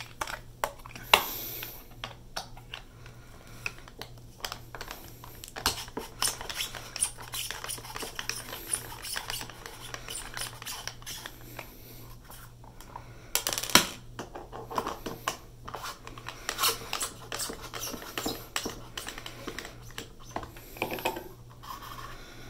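Small screws being worked out of a PS4 Slim hard drive's metal caddy with a small screwdriver: light scratching and clicking of metal on metal, with a sharper knock about a second in and another near fourteen seconds.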